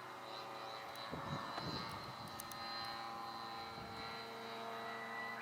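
Radio-controlled F3A aerobatic model airplane flying, its motor and propeller giving a steady, even tone. A gust of wind rumbles on the microphone about a second in.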